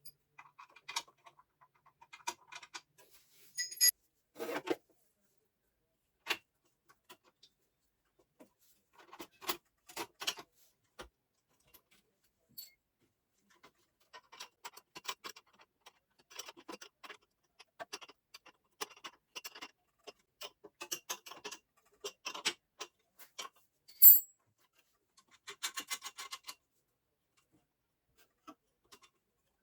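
Scattered clicks, light knocks and clinks of small metal parts and tools being handled, with quiet gaps between them. A couple ring briefly, and a sharp metallic clink about 24 seconds in is the loudest.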